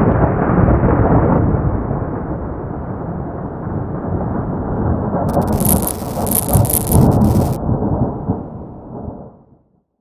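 Thunder sound effect: a long low rumbling roll that swells and fades out near the end, with a high hiss cutting in for about two seconds midway.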